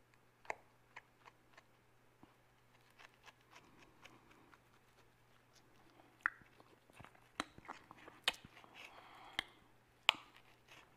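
Knife and fork clicking and scraping against a plate as grilled sausage is cut, with a sharp click every second or so, the loudest near the end, and faint chewing between.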